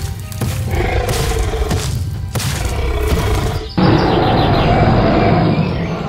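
Background music with a dinosaur roar sound effect: a long, loud roar comes in a little past the middle and holds for about three seconds.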